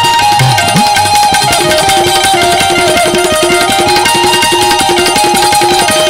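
Instrumental passage of a Gujarati devotional bhajan: harmonium playing a stepping melody over a quick, busy percussion accompaniment, with a note repeating about three times a second.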